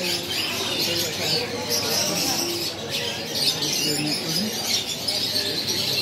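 Dense chirping of many caged small birds, budgerigars among them, with people talking in the background.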